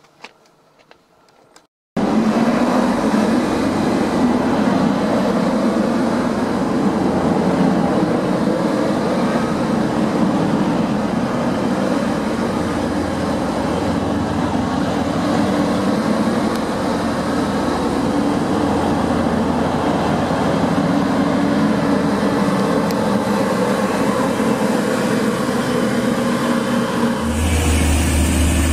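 TransPennine Express Class 185 diesel multiple unit running past at close range, its diesel engines and wheels on the rails making a loud, steady noise. The noise starts abruptly about two seconds in, after a short quiet moment.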